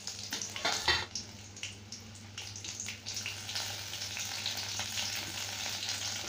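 Garlic cloves, green chillies and ginger sizzling and crackling in hot sesame oil in an aluminium kadai as they are sautéed, with one sharper crack about a second in, settling into a steady frying hiss.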